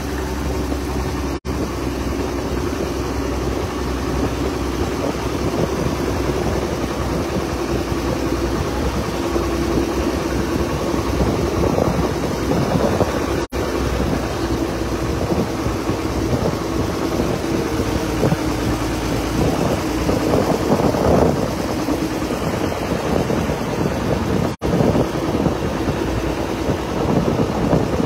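Boat engine running steadily, heard aboard the boat, with wind and water noise; the sound drops out for an instant three times.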